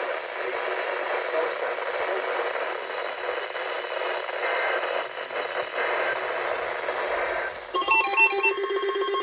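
Radio static hiss. About eight seconds in it cuts off suddenly and an electronic melody of stepped, pulsing beeps starts.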